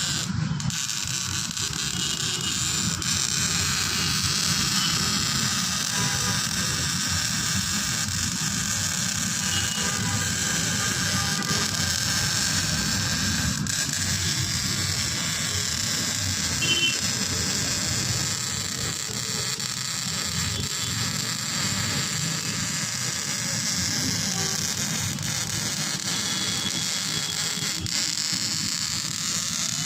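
Welding arc crackling and hissing steadily for the whole stretch, without a break.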